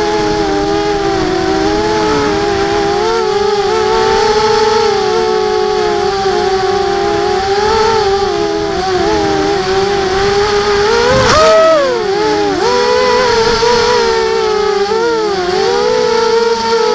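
Emax Nighthawk quadcopter's brushless motors and propellers whining in flight, several slightly different pitches wavering as the throttle shifts, as picked up by the camera mounted on the quad. About eleven seconds in there is a brief knock and the pitch jumps up, then drops away.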